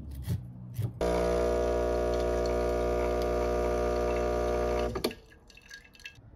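After a couple of light clicks, a Breville Barista Express espresso machine's vibratory pump runs with a steady, loud buzz for about four seconds as it pulls a shot. It then cuts off suddenly, leaving a few faint ticks.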